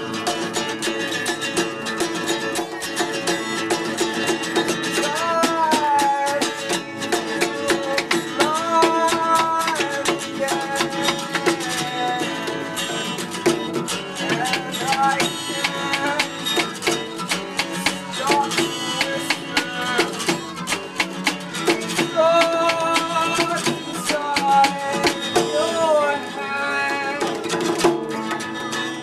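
Live acoustic music: two acoustic guitars strummed in a fast, busy rhythm with a hand drum beating along.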